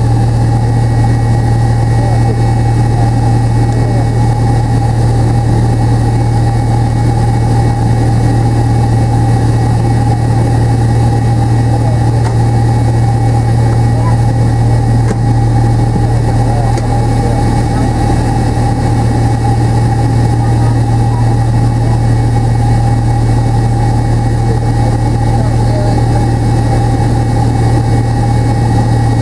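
Steady cabin noise of a McDonnell Douglas MD-83's rear-mounted Pratt & Whitney JT8D turbofans running at low power on the ground, heard from inside the cabin. It is a constant low hum with a fainter steady whine above it.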